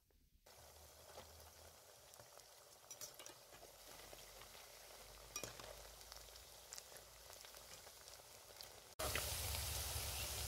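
Onion pakoras sizzling in hot oil as they deep-fry, a faint, steady crackle and hiss with a few light clicks. The sizzle is louder near the end.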